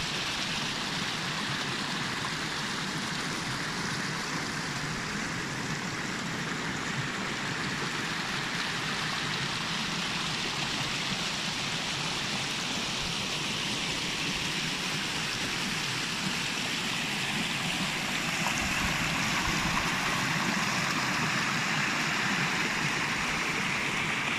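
Steady rush of water from a spring-fed stream, getting a little louder about three-quarters of the way through.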